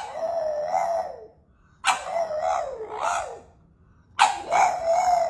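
A French bulldog howling: three drawn-out howls with a wavering pitch, separated by short pauses.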